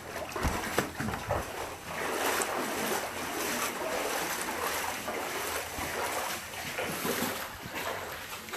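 Shallow floodwater sloshing and splashing around feet as a person wades through a flooded house, with a few knocks in the first second or so.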